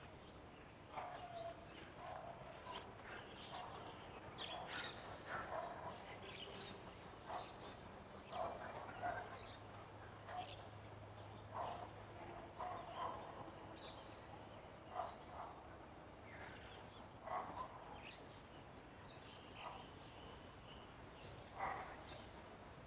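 Faint, scattered bird chirps and short calls, coming irregularly every second or so.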